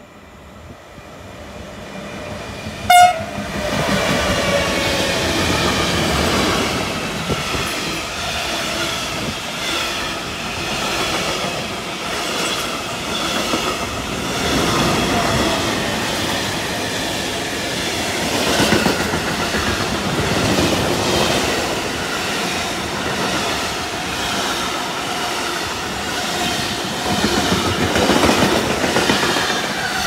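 Freight train passing close at speed. The electric locomotive gives one short, sharp horn blast about three seconds in as it arrives. Then comes the long steady rush of the wagons, with wheels clattering over the rail joints.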